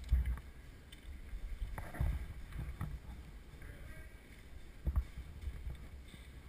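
Low rumble of wind and handling noise on the microphone, with a few short knocks: one at the start, one about two seconds in and a sharper one near five seconds.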